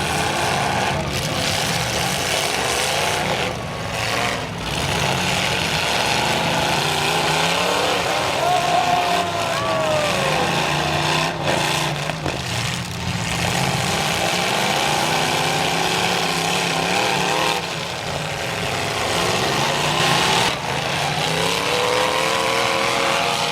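Several demolition derby engines running and revving at once, their pitches rising and falling as the vehicles move about the arena. A short falling tone sounds about nine seconds in.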